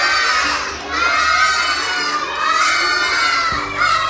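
A class of young children calling out together in loud chorus, in several phrases, as when reciting letters that a teacher points to on a wall chart.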